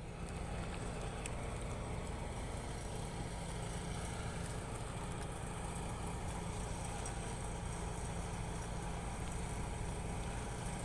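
Steady low engine hum under an even haze of wind and water noise.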